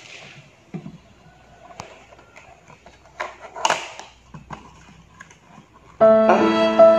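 A small cardboard toy box being handled and its flap pulled open: faint scattered clicks and short paper rustles. About six seconds in, loud music comes in suddenly with a held synth chord.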